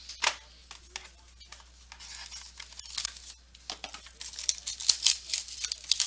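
Trading-card pack wrapper being torn open and crinkled by hand: an irregular string of sharp crackles and rustles, getting busier and louder in the second half.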